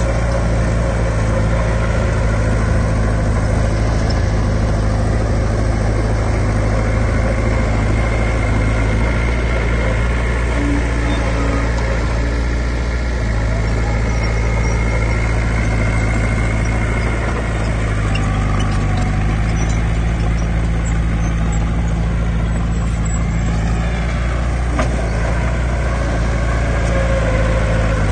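Heavy earthmoving machinery's diesel engine running steadily at a constant speed.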